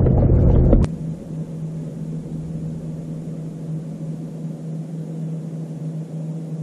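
A gust of wind buffets the microphone for under a second, then a boat's motor runs steadily: an even low hum over a soft hiss.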